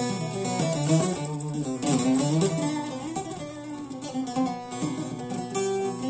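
A long-necked bağlama (Turkish saz) played solo: a plucked melody with quick runs of notes over a steady low drone.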